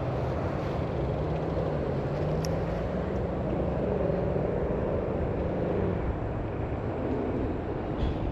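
A steady engine drone from passing motor traffic or an aircraft, with a low hum that slowly rises in pitch over several seconds and then eases back down.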